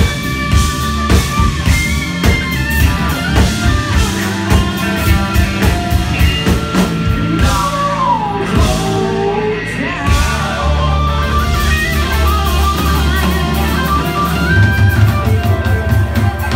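Live blues-rock band: a Stratocaster-style electric guitar playing lead over a drum kit, with sustained and bending guitar notes.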